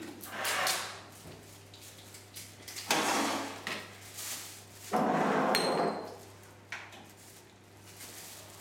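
Kitchen handling noises: knocks and clatters of cupboards and utensils, in three short bursts a couple of seconds apart.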